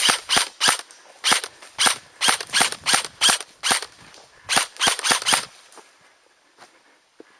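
Airsoft gun firing single shots in quick succession, about fifteen sharp cracks at an uneven pace of two to three a second, stopping about five and a half seconds in.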